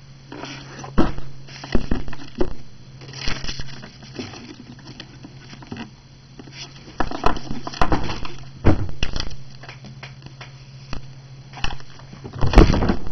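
A cat's paws tapping the keys of a desk calculator and shuffling about the desk: irregular clicks, knocks and rustling in uneven clusters, loudest near the end.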